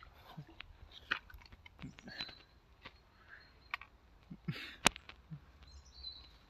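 Faint rustling and scattered light clicks of footsteps and handling on a dry dirt-and-grass path, with one sharper click about five seconds in.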